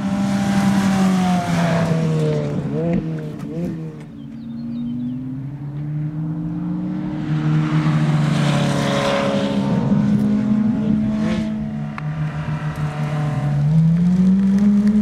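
Ferrari Challenge race cars' V8 engines running hard past on track. The engine note falls and wavers about three seconds in as a car slows, swells loud again in the middle as a car passes, and rises near the end as a car accelerates.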